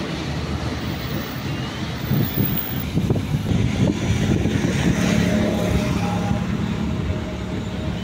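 Road traffic: motor vehicles passing on a wide road, with a steady low engine hum that is strongest in the second half.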